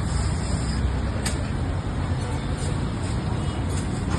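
Steady low rumbling background noise, with a single sharp click just over a second in.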